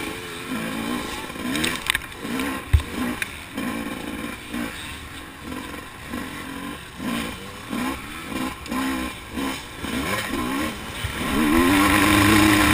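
Motocross bike engine on a 250-class race bike, revving up and falling back again and again as the rider works the throttle around the track, heard from a helmet-mounted camera. A couple of sharp knocks come in the first few seconds, and near the end there is a longer, louder hard pull.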